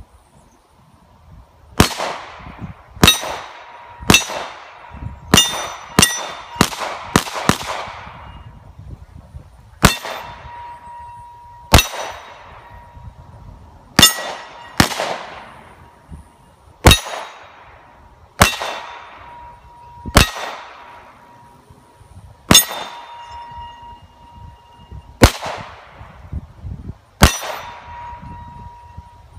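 Gunshots fired one at a time, about eighteen of them, mostly a second or two apart with a quicker string between about five and eight seconds in. After several shots a clear ringing tone lingers, a steel target ringing from a hit.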